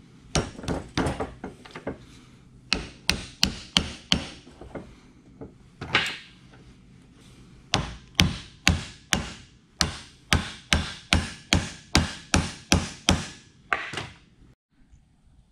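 Hammer blows on a driveshaft universal joint, driving it out of the yoke: sharp metal strikes in short groups, then a steady run of about two and a half blows a second in the second half.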